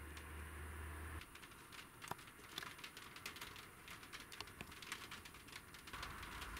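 Faint, irregular patter of scattered raindrops ticking on a roof. A low hum sounds for about the first second, then stops.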